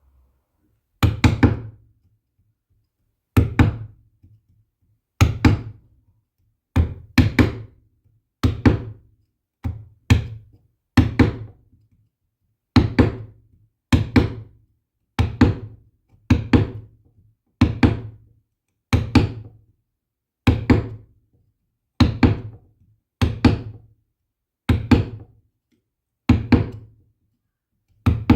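A steady series of about twenty hard knocks, roughly one every second and a half, each a dull thunk with a short ring. Sometimes two come close together.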